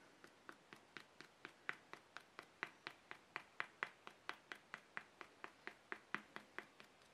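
Light, evenly paced tapping on a vinyl reborn doll head as it is dabbed by hand, about four taps a second, growing a little louder toward the middle.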